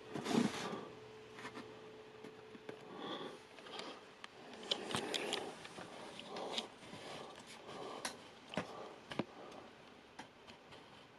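Cardboard retail packaging being handled and opened: rustling and scraping, with scattered sharp clicks and taps as flaps and inserts are worked loose.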